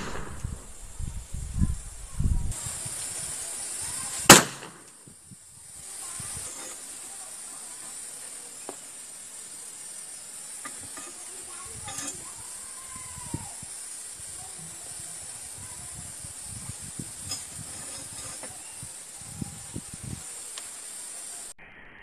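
Two sharp shots from a homemade gun, the first right at the start and the second, louder, about four seconds in. Afterwards a steady hiss with a few faint knocks.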